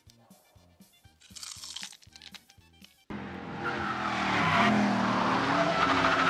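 Faint background music with a steady low beat, then suddenly a car's tyres squealing as it skids through a turn under hard throttle, the screech gliding up and down in pitch.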